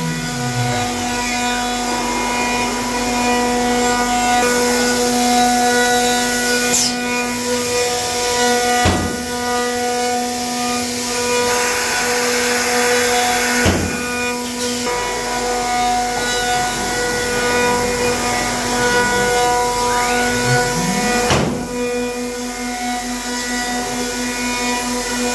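CNC router spindles milling a walnut gun stock: a steady, loud whine with a rasping cutting noise. The whine's pitch drops near the start and climbs again about twenty seconds in, and a few sharp clicks come through.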